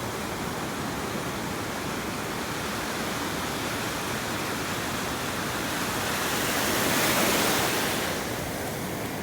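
Ocean surf washing onto a sandy beach: a steady rush of water, swelling louder as a wave comes in about six to eight seconds in.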